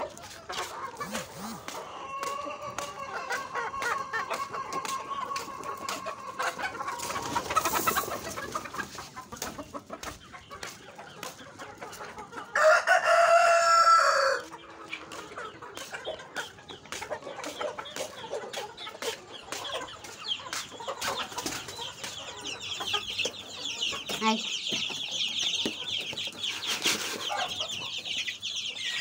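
Native deshi chickens clucking, with a rooster crowing loudly once about halfway through, under two seconds long. A fast, high chittering joins in the last several seconds.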